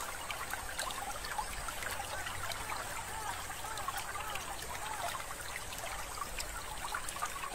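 Water trickling and bubbling, a steady babble with many small drips and plops.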